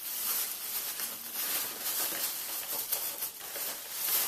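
Plastic packaging rustling and crinkling as it is handled, with irregular small crackles.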